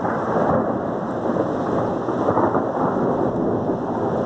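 Steady rush of heavy rain in a thunderstorm.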